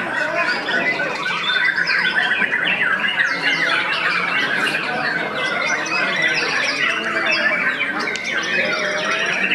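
White-rumped shamas singing at once, a dense, unbroken tangle of rapid whistles, chips and trills.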